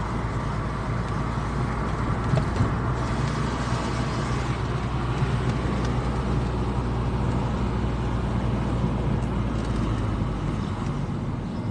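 A car driving along: steady engine and road noise.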